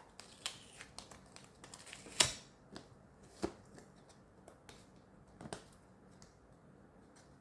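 Scattered crinkles and clicks of a plastic cake container being handled while its sticker seal is peeled off, the loudest snap about two seconds in.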